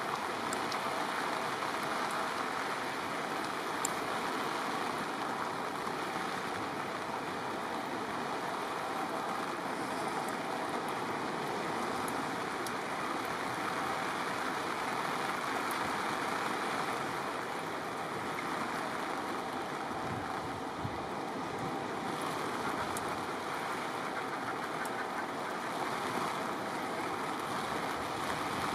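Steady rushing noise of wind and sea, even throughout, with a few faint ticks.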